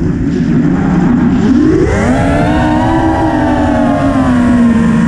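FPV quadcopter's brushless motors and propellers whining, heard close from the onboard camera with wind rush. The pitch sits low for the first second and a half, climbs steeply about two seconds in as the throttle comes up, then holds and dips briefly near the end.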